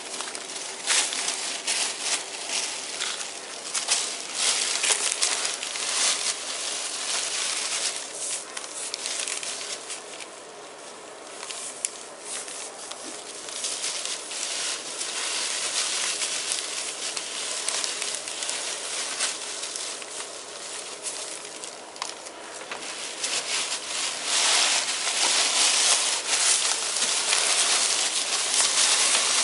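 Ferrets playing and scrabbling, a continuous crinkly rustling with many short scratchy clicks; it eases off briefly about a third of the way in and grows louder near the end.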